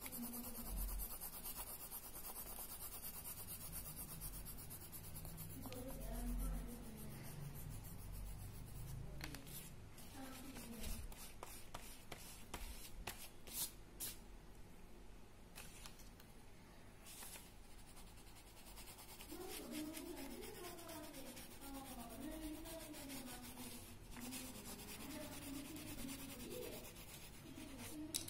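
Coloured pencil scratching on paper as it is rubbed back and forth to shade a drawing.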